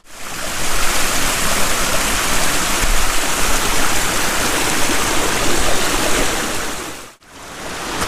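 Steady rush of a mountain stream running over rocks, breaking off for a moment about seven seconds in.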